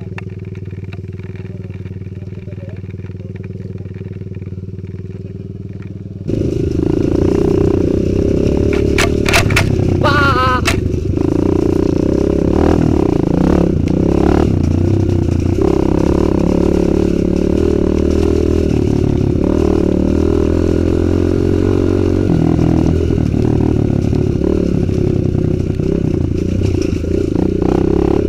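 Dirt bike engines idling steadily for about six seconds. Then the sound jumps suddenly louder as a Kawasaki KLX 150 G single-cylinder four-stroke runs under way on a muddy, stony trail, with clatter from the bike over the rough ground.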